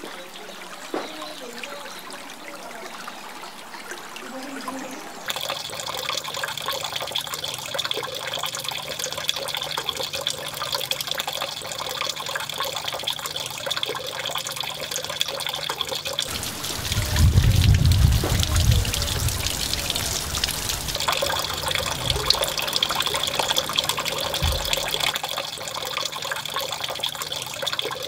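Spring water running steadily from a spout, trickling and splashing, coming in about five seconds in. A low rumble breaks in near the middle, followed by two brief low thumps.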